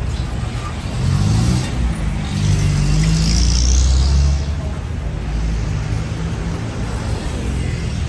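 Street traffic: motor vehicle engines close by, one rising in pitch as it speeds up about a second in, and a louder one passing from about two and a half to four and a half seconds in, with a hiss at its loudest.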